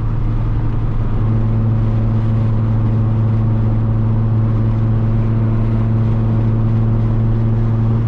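Nissan 350Z's 3.5-litre V6 engine running at steady cruise while driving, a constant-pitch drone that holds even throughout.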